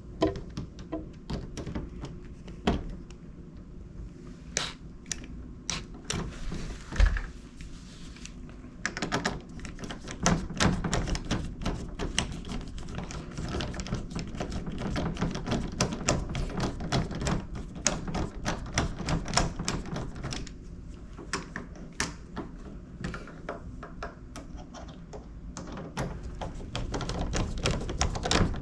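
Rapid, irregular small clicks and light knocks from work on the doorknob hardware, sparse at first and then dense from about nine seconds in, with one louder knock at about seven seconds.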